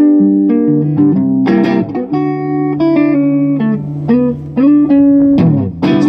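Solo archtop guitar played live: picked notes and chords over a held low bass note, with a strummed chord about a second and a half in and another near the end.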